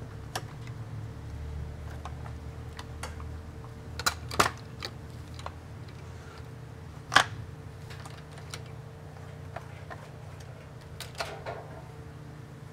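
Irregular light clicks and metal taps of hand tools and parts being handled during transmission removal, with two sharp knocks about four seconds in and a louder clank about seven seconds in, over a steady low shop hum.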